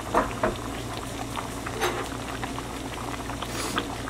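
A pan of goat meat and vegetables cooking on an electric stove: a steady bubbling with scattered small pops.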